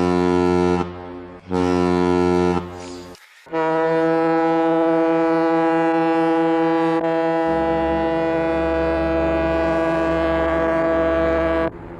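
Ship's horns blowing: two short blasts of about a second each, then, after a brief break, one long blast of about eight seconds. A second, deeper tone joins the long blast about halfway through, and the blast cuts off near the end.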